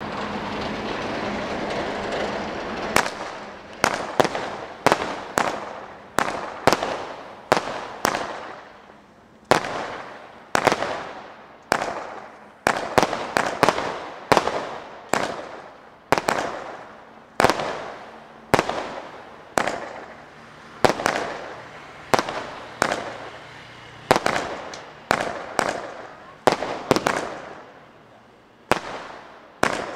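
Multi-shot consumer firework cake firing shot after shot. After a steady hiss lasting about three seconds, about forty sharp bangs come at uneven intervals of roughly half a second to a second, each fading off before the next.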